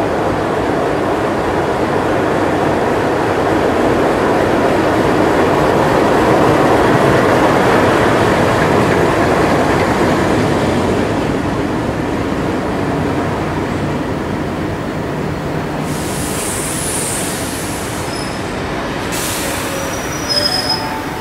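Alco-engined diesel locomotive 4501 arriving, its engine rumbling louder as it passes about seven seconds in, then fading as the carriages roll by. Near the end there is a high wheel squeal.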